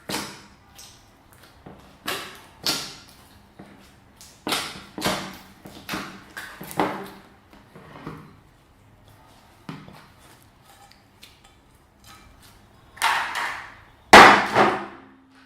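Slime being squeezed and kneaded by hand: irregular sticky pops and squelches, the loudest two near the end.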